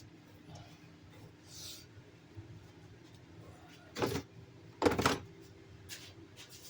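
Two short, loud clattering knocks about a second apart, from objects being handled, over a faint steady hum.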